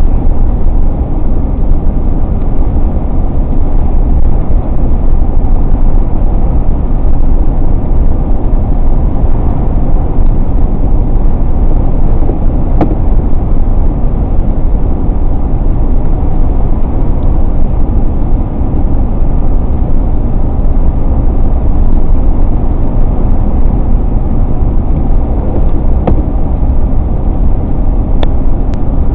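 Steady road noise of a car driving at speed: engine, tyres and wind, an even rumble strongest in the low range.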